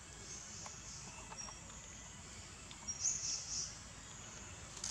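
Outdoor ambience: a steady high hiss with a few short, high chirps, and a louder burst of chirping about three seconds in.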